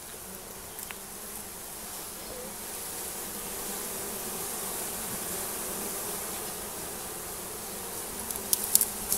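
Mass of honeybees from a freshly installed package buzzing steadily in and around an open hive box, growing a little louder after a few seconds. A few sharp clicks come near the end.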